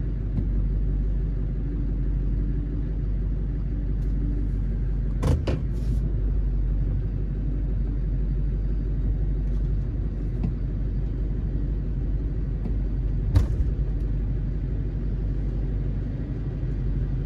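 Duramax diesel V8 running, heard from inside the truck's cab as a steady low rumble. A few short, sharp clicks come about five seconds in and one more later on.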